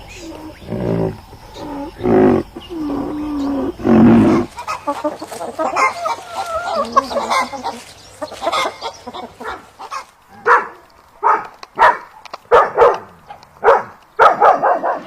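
Animal calls from several different animals in turn: low pitched calls in the first four seconds, then a busy chirping chorus, then a run of short sharp calls about twice a second in the last five seconds.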